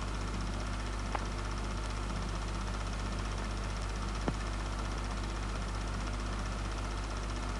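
Steady low hum and hiss of an old film soundtrack, with two faint clicks, about a second in and about four seconds in.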